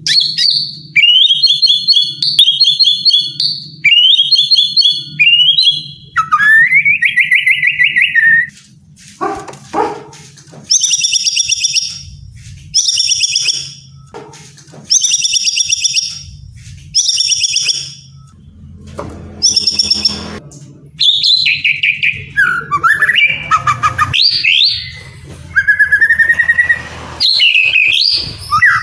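White-rumped shama singing loudly in varied phrases. First come trilled whistled phrases, each about a second long. Through the middle a high, buzzy, rapid phrase repeats about every two seconds, five times, and near the end the song turns to mixed whistles and glides.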